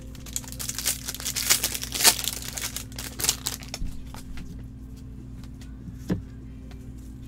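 Trading cards in plastic sleeves and holders being handled and shuffled with nitrile-gloved hands: crinkly plastic rustling and clicks, densest in the first three seconds or so, then a lone click about six seconds in, over a steady low room hum.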